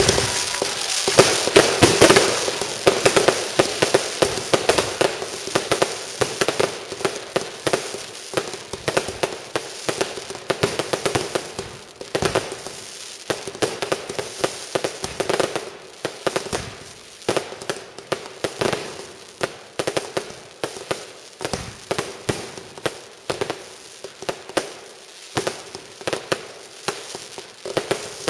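Fireworks going off: a rapid, irregular string of sharp pops and cracks, densest and loudest in the first few seconds, then continuing as scattered pops.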